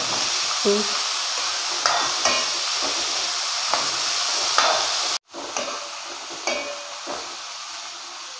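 Chopped shallots, ginger and garlic sizzling in hot coconut oil in an aluminium kadai, stirred with a metal spatula that scrapes and clicks against the pan every second or so. The sound cuts out for an instant about five seconds in and the sizzle comes back quieter.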